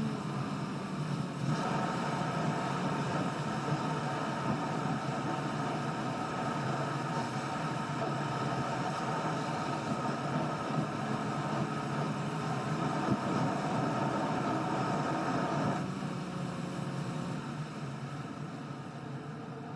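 Car driving, heard from inside the cabin: steady road and engine noise with a humming tone that comes in about a second and a half in and drops away about 16 seconds in, easing off near the end.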